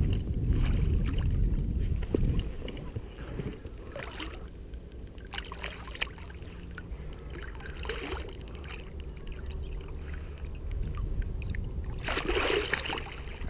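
Wels catfish thrashing at the surface beside the boat, sending up several short bursts of splashing water, the loudest near the end as it is grabbed by hand at the mouth; a low rumble runs underneath.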